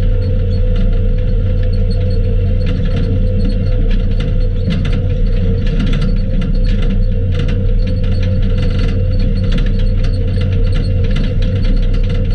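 Skid steer engine running steadily, with irregular metallic clicking and rattling over a low hum.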